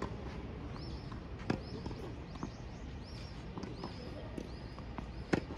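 Tennis balls being struck and bouncing on a hard court: a few sharp pops, the loudest about five seconds in, over steady outdoor background noise. Many short, high chirps repeat throughout.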